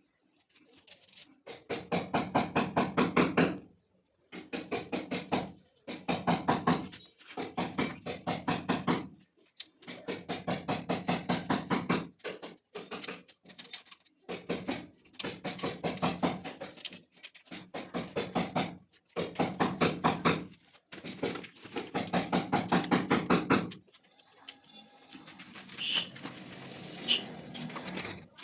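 Power tool hammering rapidly in repeated bursts of one to two seconds, with short pauses between them. Near the end the hammering stops and a couple of short high chirps are heard.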